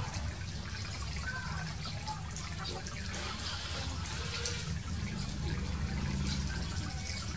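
Water trickling and lapping in a shallow frog tank, over a steady low hum.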